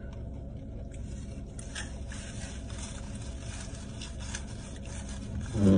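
Eating from a takeout container: faint scrapes and light clicks of a utensil over a steady low hum. A short voiced sound comes at the very end.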